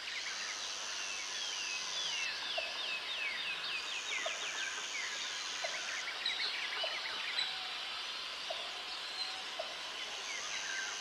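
Tropical rainforest ambience: many birds calling and chirping at once over a steady high insect drone that stops and starts, with a short low note repeating about once a second.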